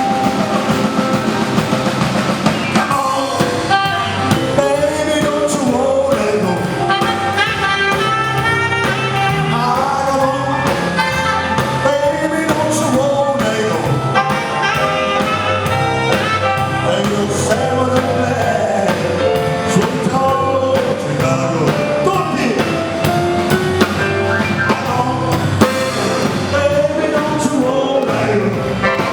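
Music with a melodic lead line over a moving bass line, playing without a break.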